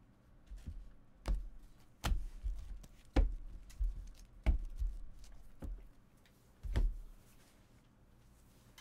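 Trading cards being handled and set down on a table: about seven irregular taps and knocks over several seconds.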